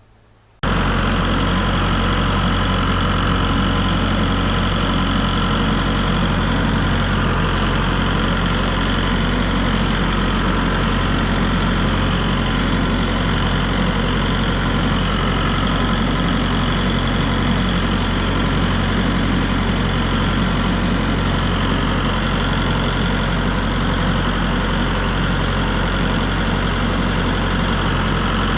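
Kubota MX5400 tractor's diesel engine running steadily, starting abruptly under a second in and holding an even, unchanging drone.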